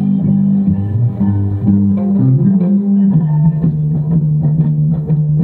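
Electric bass guitar playing a line of held low notes that step down in pitch a little after two and three seconds in. It plays over a rock backing track with a steady beat.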